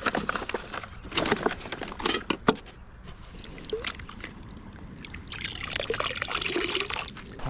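Water sloshing and trickling, with a few sharp knocks in the first seconds and a louder splashing stretch near the end.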